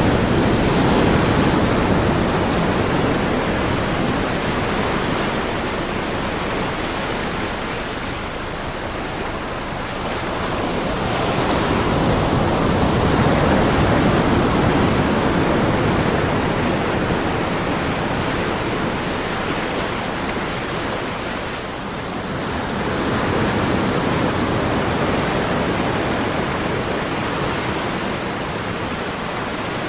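Ocean surf: a continuous rush of waves that swells and eases slowly, with louder surges roughly every ten seconds.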